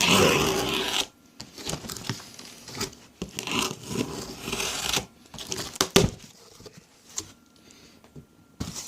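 Packaging being handled during an unboxing: a loud rustle and crinkle in the first second, then softer intermittent rustling and small clicks, with a sharp knock about six seconds in.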